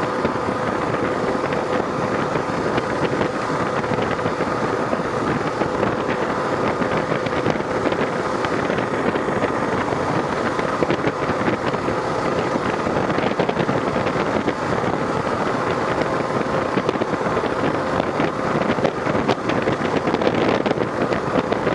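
Kawasaki KLR650 at steady highway speed, heard from the rider's helmet: wind rushing over the microphone through the cracked-open face shield, over the single-cylinder engine and knobby tyres droning with a steady hum.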